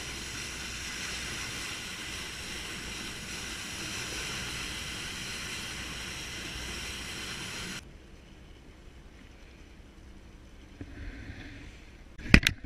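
Steady rush of wind and bow spray along the hull of a party fishing boat running at speed, which cuts off suddenly about eight seconds in. After that it is quieter, with two sharp knocks near the end.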